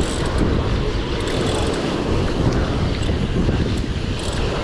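Strong wind buffeting the microphone over heavy surf breaking and washing against a rocky shore.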